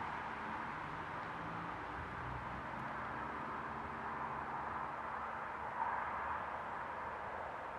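Distant Eurocopter EC145 police helicopter hovering: a steady, even rush of rotor and engine noise with a low hum beneath.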